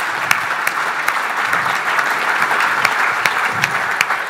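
Audience applauding, with one nearby pair of hands clapping sharply at about three claps a second over the general applause.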